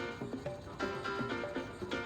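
Background music: a melody of short pitched notes in a repeating phrase, with a strong accent about once a second.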